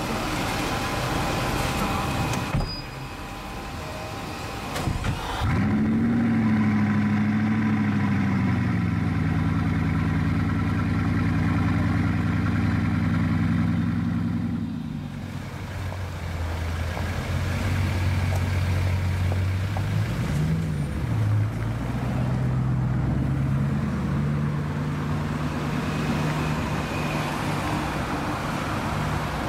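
Bugatti Chiron's quad-turbo W16 starting up about five seconds in with a brief flare of revs, then idling high and settling to a lower steady idle. A short blip comes past the twenty-second mark, and the engine note rises near the end as the car pulls away.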